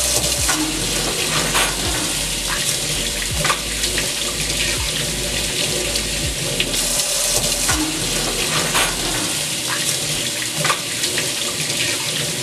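Water running from a kitchen mixer tap into a stainless steel sink as hands are washed under the stream: a steady rush with irregular splashes.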